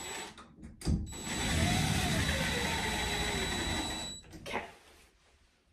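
Cordless drill driving the mounting screw of a shower valve trim plate: a knock about a second in, then the drill runs steadily for about three seconds and stops, followed by a single click.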